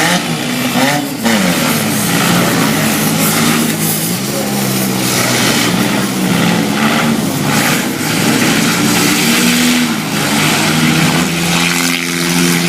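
Several four-cylinder demolition-derby car engines running and revving, their pitch rising and falling again and again as the cars push and hit each other.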